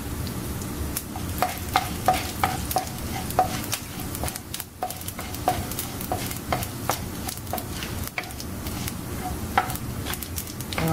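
Mustard seeds and dals frying in hot oil in a ceramic-coated frying pan, with a sizzle and many sharp, irregular pops as the seeds splutter, while a wooden spoon stirs them around the pan.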